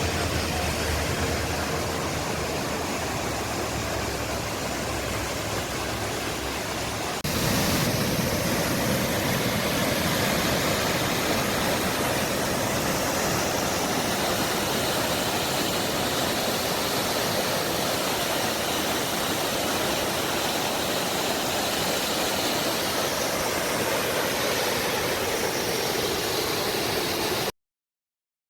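Steady rush of falling water from Dudhsagar waterfall, a heavy cascade. About seven seconds in it shifts suddenly to a slightly louder, brighter rush, and it cuts off abruptly near the end.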